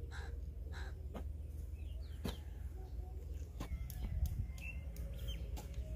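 Crows cawing over a steady low rumble, with several short knocks from a hoe blade striking earth as soil is dug.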